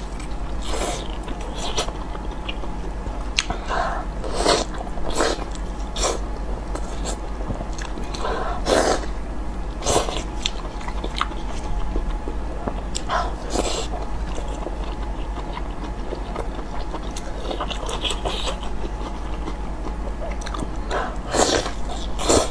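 Close-up eating sounds of spicy, sauce-coated sheep offal: wet, irregular bites, chewing and lip smacks, over a steady low hum.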